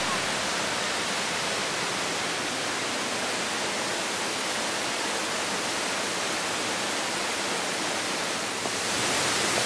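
Steady, even rushing hiss with no distinct events, getting a little louder near the end.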